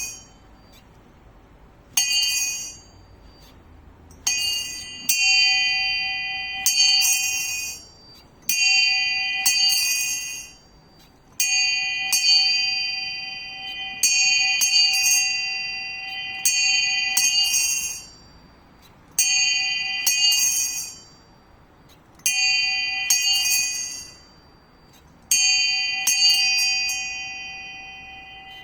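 Small bells of a personal bell tower being rung, struck in quick clusters of strokes every two or three seconds, each cluster ringing on and dying away.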